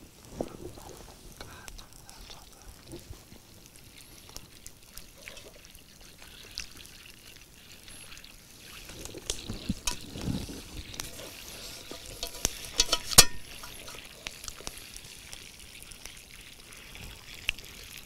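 Small-stick campfire crackling with scattered snaps, one sharp snap louder than the rest about two-thirds through, while butter heating in a metal cup at the fire's edge begins to sizzle and bubble as it melts.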